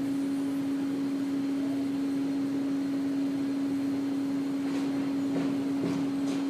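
A steady hum on one constant tone over a background hiss, with a few faint short sounds in the second half.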